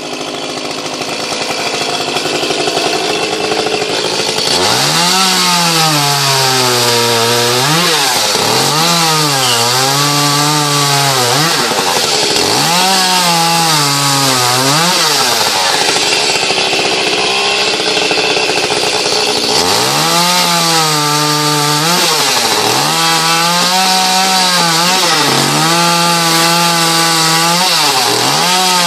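Echo CS-310 two-stroke chainsaw cutting wood at high revs. About four seconds in it is throttled up hard, and its engine note dips and climbs back again and again as the chain works through the wood.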